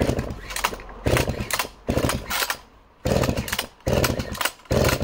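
Echo CS-60S vintage two-stroke chainsaw's recoil starter pulled six times in quick succession, each pull turning the engine over in a short rapid burst; the engine does not fire. The saw is being tested for starter pulls that reportedly slip.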